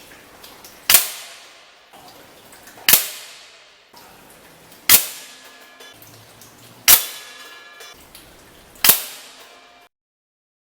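Hatsan AT44 .177 PCP air rifle firing five shots about two seconds apart, each a sharp crack that dies away quickly.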